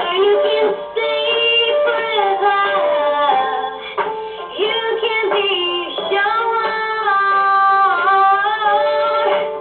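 A female voice singing a melody over instrumental accompaniment, with notes that glide and are held.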